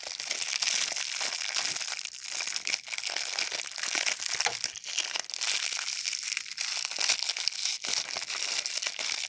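Plastic lollipop wrapper being crinkled and handled close to the microphone, a dense run of sharp crackles that goes on without a break.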